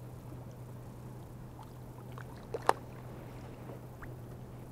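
Small water splashes and trickling sounds at the river's edge, with one sharp click or knock a little past halfway, the loudest sound.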